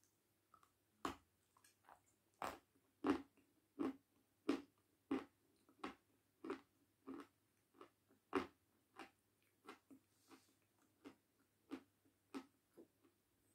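A hard white chalky chunk being bitten and chewed close to the mouth: a sharp crunch about a second in, then a steady run of crisp crunches, about one and a half a second, growing softer near the end.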